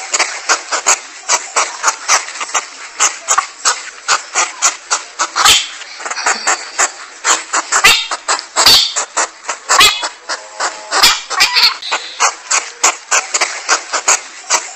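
North American porcupine chewing on a tree branch: fast crunching clicks, several a second, with a few short squeaky notes mixed in near the middle.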